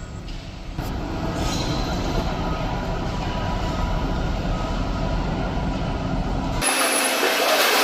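Steady, heavy rumble of a large vehicle, grows louder just under a second in. It cuts off abruptly about a second before the end, giving way to a thinner hiss.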